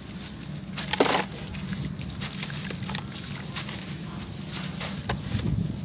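Damp sand-cement block being crushed and crumbled by hand over a tub of muddy water: irregular wet, gritty crackling with one louder crack about a second in, over a low steady hum. The block is soaked from rainy-season humidity, so it breaks soft and wet instead of dry and crunchy.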